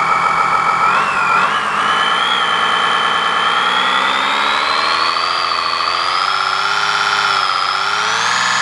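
RC engine-sound simulator playing a simulated M35 military truck engine through a small loudspeaker. It idles steadily, then revs up in a slow climb in pitch that steepens near the end.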